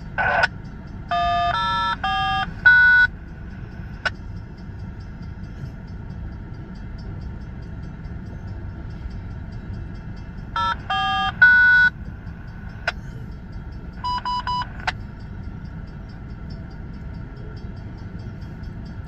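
Short sequences of electronic beep tones over a railroad radio, three or four tones of different pitch stepped one after another like touch-tone dialing, coming in three groups: soon after the start, about halfway through, and a shorter one a few seconds later. A steady low rumble runs underneath.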